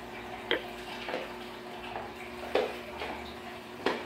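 Spin mop worked around a tile floor, with four sharp, unevenly spaced plastic knocks as the mop bumps against its plastic spin bucket.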